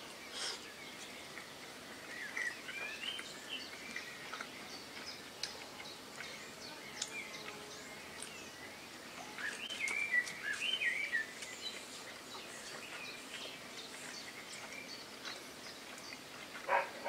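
Songbirds singing in the surrounding garden, with two bursts of chirping song, one about two seconds in and a longer one around ten seconds in, over a steady faint outdoor hiss. A brief louder sound comes near the end.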